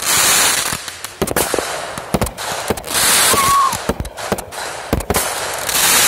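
Aerial fireworks going off: a rapid run of sharp bangs from bursting shells, with loud rushes of hiss near the start, about three seconds in, and again at the end.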